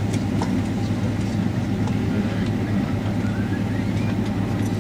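Steady cabin noise inside a Boeing 767 on the ground, a low hum from its Rolls-Royce RB211 engines at idle and the cabin air, with a faint rising whine about three seconds in.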